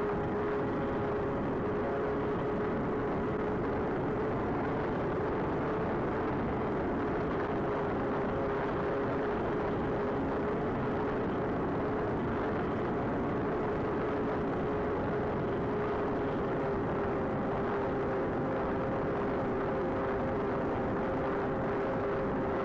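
Twin electric motors and propellers of an AtomRC Swordfish FPV plane in steady cruise: an even propeller hum over wind noise on the onboard camera's microphone.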